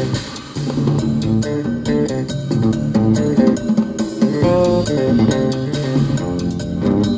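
Rock-style music with electric guitar, bass guitar and a steady drum beat, played through the car's speakers from an Alpine car head unit.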